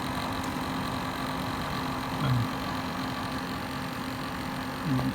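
Desktop PC's liquid CPU cooler and fans running with a steady hum and whir. It is the faulty cooler's noise that the owner wants fixed.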